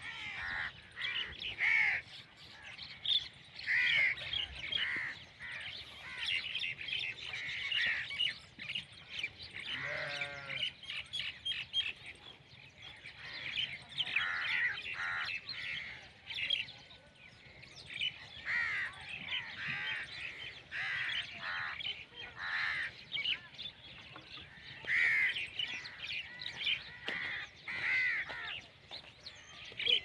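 Many birds calling at once, a busy chorus of short, repeated chirps and whistled calls. About ten seconds in there is one lower, harsher call.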